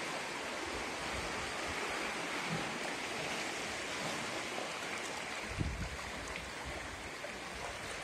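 Steady wash of sea water, small waves on a beach, with a brief low rumble of wind on the microphone a little past halfway.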